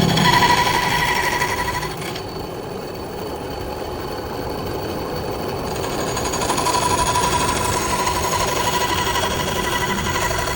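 Mini bandsaw running and cutting through wood, a steady mechanical buzz with a whine in it. The whine drops out and the sound eases for a few seconds about two seconds in, then picks up again near the six-second mark.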